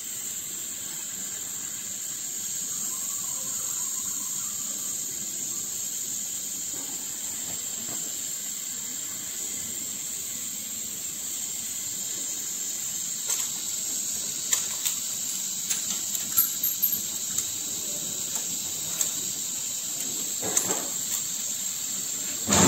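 Steady hiss of the gas-and-oxygen burner flames on an ampoule sealing machine, the preheat flame just turned up. Scattered light clicks come in over the second half.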